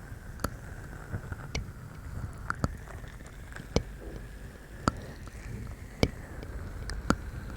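Close-miked wet mouth clicks and lip smacks, one sharp click about every second, over a low steady rumble.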